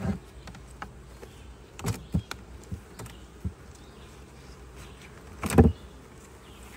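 Honeybees buzzing around an open hive, a steady hum. Several sharp knocks and clicks cut through it, with a louder thump about five and a half seconds in.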